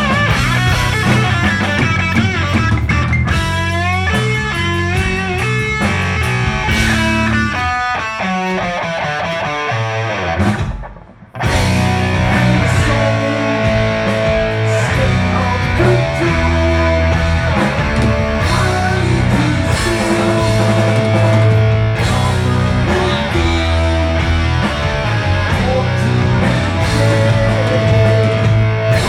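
Heavy metal band playing live: electric guitar lines moving fast over bass and drums, then a brief break about eleven seconds in before the full band comes back in.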